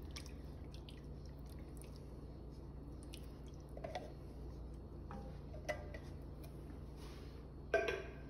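Canned coconut milk dripping from a tipped can into a pot of soup, with faint scattered taps of a wooden spoon against the enamelled pot and one sharper knock near the end.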